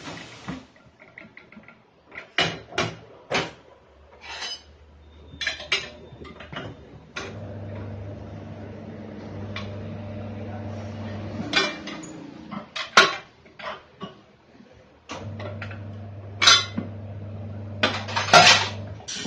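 Metal clanks and knocks from tools and wheel parts during a car tyre change, with a low, steady machine hum running twice for several seconds.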